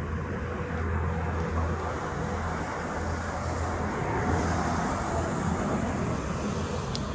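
Steady low rumble of vehicle traffic with a constant low hum.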